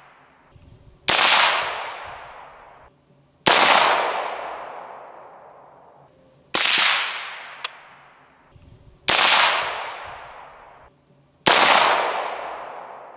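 Five single shots from a 5.7x28mm CMMG Banshee, spaced two to three seconds apart. Each is a sharp crack followed by a long echo that fades over about two seconds. The first shots are fired through the Rugged Oculus22 suppressor in its long configuration, still carrying the supersonic ballistic crack; the later shots are unsuppressed.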